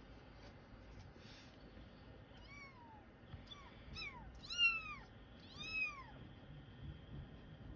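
A kitten mewing: about five short, high-pitched mews, each rising and then falling in pitch, starting about two and a half seconds in, with the fourth the loudest.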